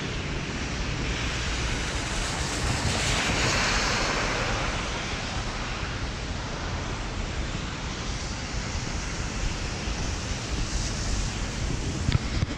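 Rainy city street: a steady hiss of rain and wet traffic, swelling as a vehicle's tyres pass on the wet road about three seconds in. A few sharp knocks near the end.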